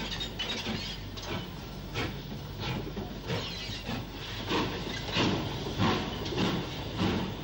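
Steam locomotive working slowly, with a regular beat of about three chuffs every two seconds that grows louder in the second half.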